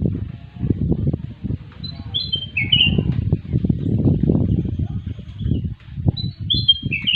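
A kutilang emas bulbul sings two short phrases of quick, falling whistled notes, one about two seconds in and one near the end. Louder irregular low thumps and rumbling run underneath.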